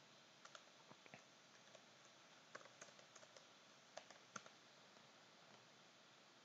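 Faint computer keyboard keystrokes: a dozen or so irregular clicks in small clusters, thinning out after about four and a half seconds.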